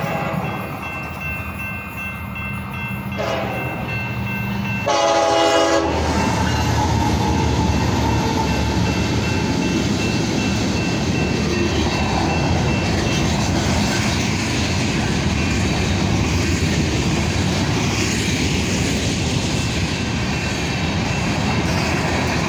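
A commuter train rolls away, then a train horn gives one short blast about five seconds in. A Union Pacific freight train of covered hopper cars then rolls past close by: a loud, steady rumble of steel wheels on the rails.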